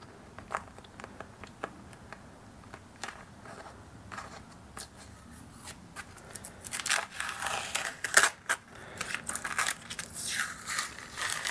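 Masking tape being peeled off a freshly painted steam locomotive cylinder block and crumpled by hand: faint small ticks at first, then louder crinkling and tearing in short bursts from about two-thirds of the way in.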